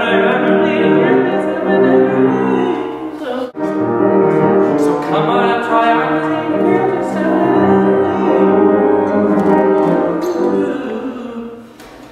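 A man singing with upright piano accompaniment, holding long notes in a full voice; the lyrics list symptoms of hypothermia. The sound breaks off sharply for an instant about three and a half seconds in, then carries on, and dies away at the end.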